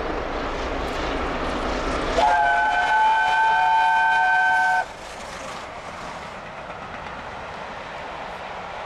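LNER Peppercorn A1 Pacific steam locomotive 60163 Tornado passing at speed under steam with its train. About two seconds in its whistle sounds several notes at once for about two and a half seconds and cuts off sharply, leaving the quieter rolling of the coaches going by.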